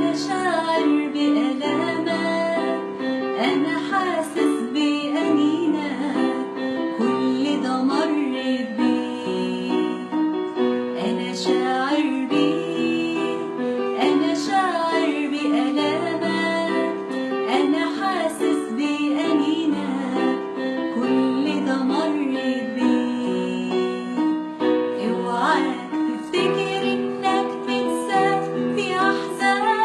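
Arabic Christian hymn: a singing voice over keyboard accompaniment.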